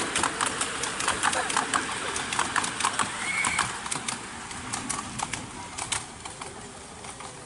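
Carriages of a 7¼-inch gauge miniature railway train rolling past, their wheels clicking and clattering irregularly on the track, the sound fading as the train moves away in the second half.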